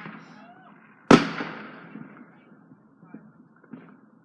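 A firework going off with one sharp bang about a second in, its echo fading over the next second, amid faint scattered pops.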